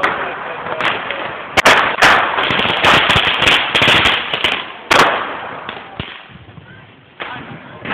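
Firecrackers going off at street level: a few sharp bangs about a second in, then a dense run of cracks for about two seconds, and a last loud bang near the five-second mark before it dies away.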